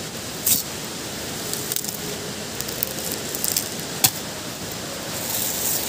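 Rustles and light clicks of freshly cut wild sugarcane stems being handled, with one sharp knock about four seconds in as a machete blade strikes a stem. Under it runs the steady rush of fast-flowing water.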